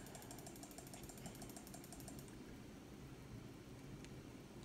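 Faint, rapid, evenly spaced clicking from scrolling a list on a computer, over a low steady hum. The clicking thins out about halfway through and picks up again near the end.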